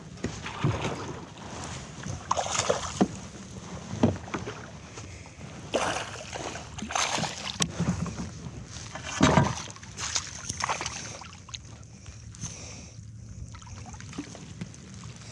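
Irregular knocks, rustles and splashes of handling in a fishing kayak, over a faint steady background hum.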